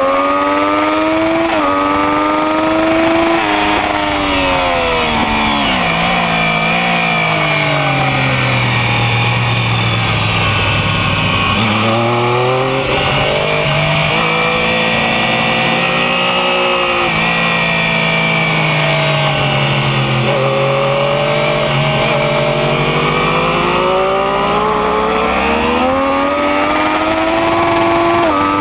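Sport motorcycle engine at full song, heard from on the bike with steady wind rush. The revs climb and step up through quick gear changes at the start, fall away into a long low stretch, hold through the middle, and build again near the end.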